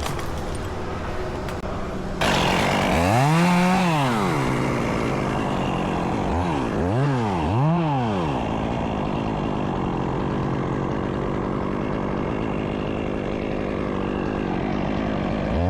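Chainsaw engine running, growing louder about two seconds in. Its throttle is blipped once about three seconds in and twice more around seven seconds, each rev rising and falling in pitch, with idling in between.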